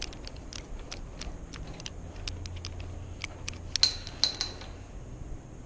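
Small clicks from the number wheels of an old, rusted Master combination padlock being turned by hand, with two louder metal clinks about four seconds in.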